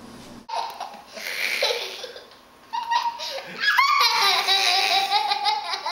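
High-pitched laughter and giggling, getting louder and more sustained from about four seconds in.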